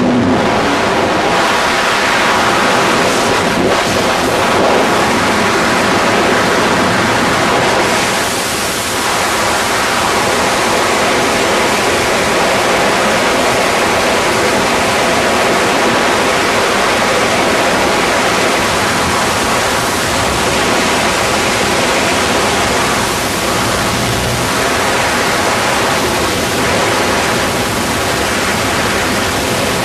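Loud, steady rush of freefall wind blasting across the camera flyer's microphone.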